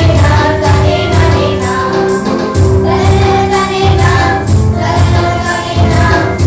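A mixed group of children and women singing a Tamil gospel song together, over an accompaniment with a steady low beat.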